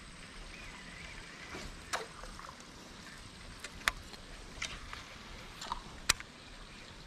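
Water lapping and trickling against a small boat's hull, with a few short sharp clicks scattered through it, two of them louder.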